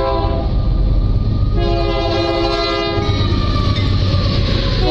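Union Pacific diesel locomotives leading a grain train pass close by, the engines rumbling deep and steady. The air horn sounds in blasts: one ends just after the start, a longer one runs from about a second and a half to three seconds in, and another begins right at the end.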